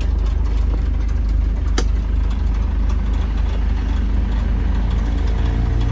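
Isuzu Hi-Lander's 2.5-litre diesel engine idling steadily, heard from inside the cabin, with a single sharp click about two seconds in.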